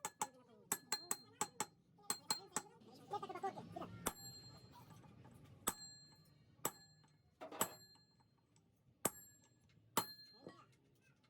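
Steel being struck with sharp ringing clinks: a quick run of strikes in the first few seconds, then single strikes spaced about a second or more apart.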